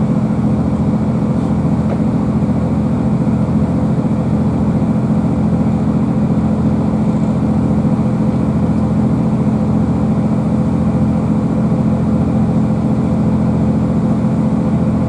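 Steady interior running noise of a GWR Class 165 diesel multiple unit under way, heard from inside the passenger saloon: a low, even drone from the underfloor diesel engine and the running gear on the track.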